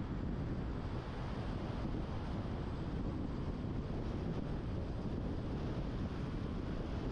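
Steady driving noise of a car on the road, with wind rumbling on the microphone.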